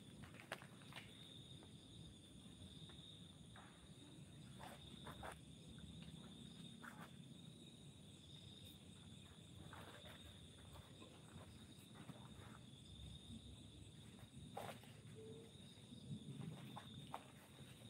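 Faint steady high trill of night insects, with scattered soft crackles and rustles.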